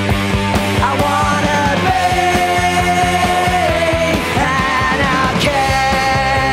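Rock music with a steady driving beat and long held melody notes.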